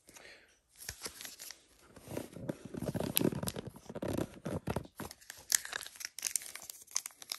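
Foil Pokémon booster pack wrappers crinkling and tearing in the hands, an irregular crackle with many sharp snaps, busier from about two seconds in.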